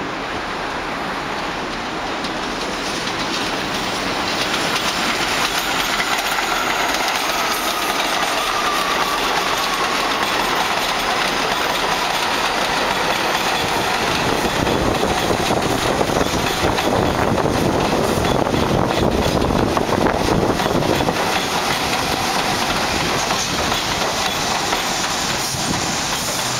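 R62A subway train passing at speed on the elevated track: a steady rumble and clatter of steel wheels over rail joints, which swells over the first few seconds and stays loud. A faint whine falls in pitch about five to ten seconds in.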